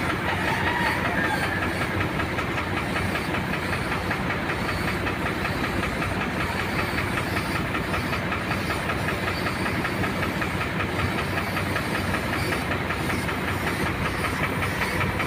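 Suction-feed paint spray gun hissing steadily as compressed air atomises the paint, with a motor running steadily underneath.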